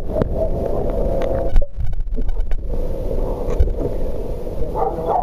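Muffled underwater sound from a phone's microphone submerged in the water: a steady rumbling wash, broken by a few knocks, the loudest about a second and a half in.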